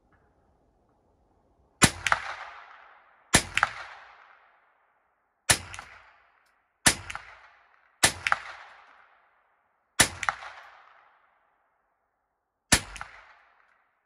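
Seven gunshots fired one after another at an uneven pace, about one and a half to two and a half seconds apart, emptying the gun's seven-round magazine. Each sharp crack is followed about a quarter second later by an echo and a fading tail.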